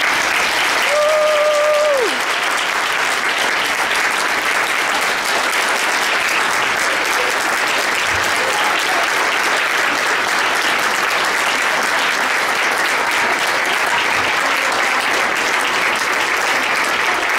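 Audience applauding: many people clapping in a long, steady ovation. About a second in, one voice holds a long cheer that falls away at its end.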